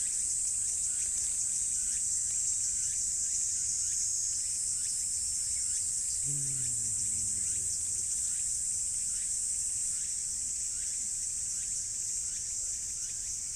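Steady high-pitched droning of insects, with one low growl from a tabby stray cat about six seconds in that falls in pitch and lasts about a second and a half. The growl is a threat aimed at a rival cat nearby.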